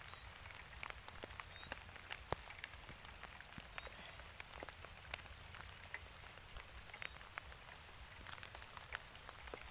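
Light rain falling, with scattered drops ticking at irregular moments against a faint steady hiss.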